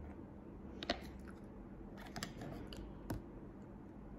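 A handful of light clicks and taps from a small plastic bowl being handled over a plastic plate and set down. The sharpest come about a second in and again near three seconds.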